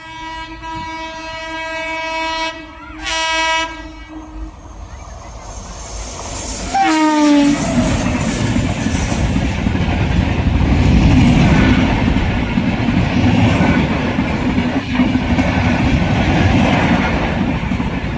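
A WAP-7 electric locomotive's horn sounds a long steady blast, then a short wavering one, and about seven seconds in a brief horn note drops in pitch as the locomotive rushes past. The superfast express's coaches then clatter by at speed on the rails.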